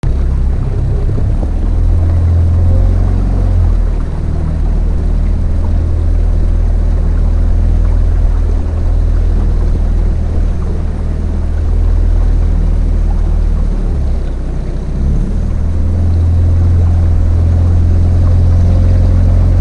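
Motorboat under way, its engine running steadily with a deep, even rumble and a rush of water and wind over the bow.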